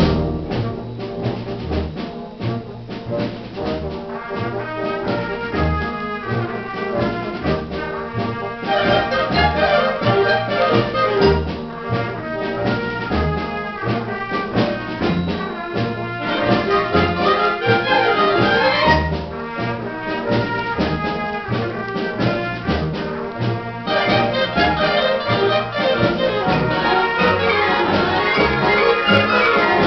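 Concert wind band playing, with trombones and trumpets prominent over steady low bass notes. It starts softer and swells louder about ten seconds in and again near the end.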